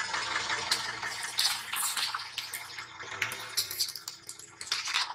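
Plastic toy pickup truck cracking and crunching as a car tyre rolls over it, a dense run of snaps and crackles that cuts off suddenly at the end.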